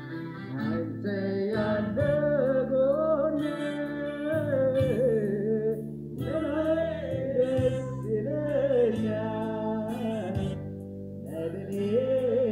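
A voice singing a slow melody through a microphone over sustained chords on a Yamaha electronic keyboard. The vocal phrases break off briefly twice while the keyboard chords hold.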